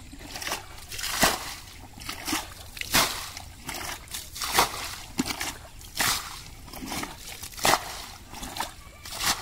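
Muddy water being bailed out of a shallow pool with a plastic bucket: repeated scoop-and-throw splashes, roughly one a second. The pool is being drained to get at the fish.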